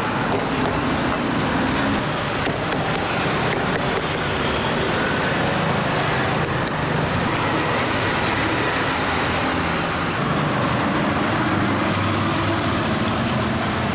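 Steady road traffic noise from a busy street. About eleven seconds in, a higher hiss joins it: oil sizzling in a wok as battered pieces fry.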